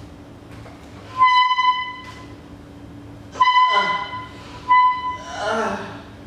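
Three loud beeps, each held at one steady pitch for under a second, the last followed near the end by a short vocal sound.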